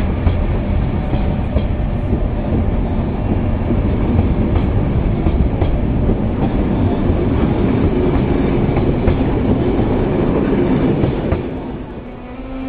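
Passenger train coaches rolling past along a station platform, a loud steady rumble of wheels on rail that drops away about 11 seconds in as the last coach goes by.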